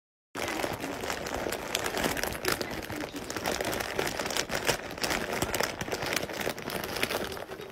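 A plastic snack-chip bag crinkling and crackling continuously as a cat lies on it and a hand tugs at it.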